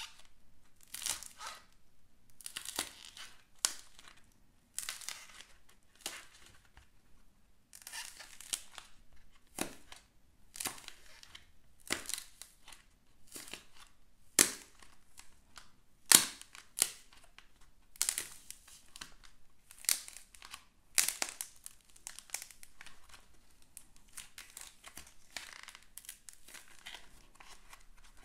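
A soft reindeer-shaped slime figure being squeezed and torn apart by hand, giving crackling, tearing squelches in irregular bursts every second or so, a few sharper pops among them.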